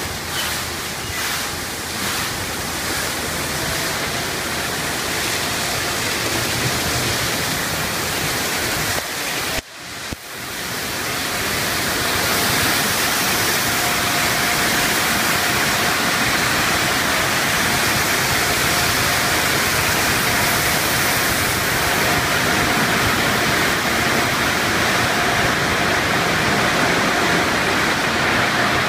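Automatic car wash tunnel: water spraying and cloth brushes scrubbing a vehicle, a loud steady rushing hiss with rhythmic slapping of brush strips near the start. The sound cuts out briefly about ten seconds in, then returns louder and steady with a faint steady hum, as the waterfall rinse pours over the roof.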